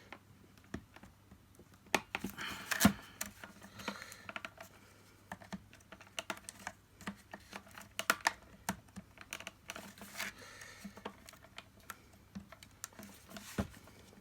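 Plastic parts of a Dyson DC50 vacuum cleaner being handled and clipped back together as its mesh covers are refitted: irregular light clicks and taps, with a few louder knocks.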